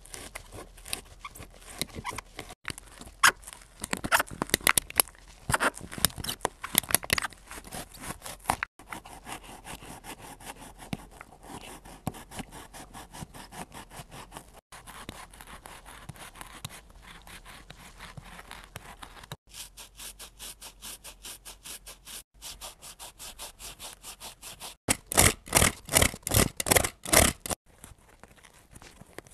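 Shoe materials being scraped and torn apart by hand in quick rasping strokes. A run of loud, evenly spaced strokes, about four a second, comes near the end.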